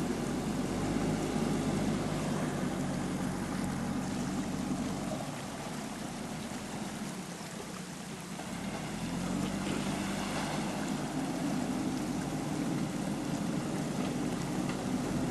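Diesel engine of a JCB 3DX backhoe loader running under load. It eases off about five seconds in, then revs back up a few seconds later.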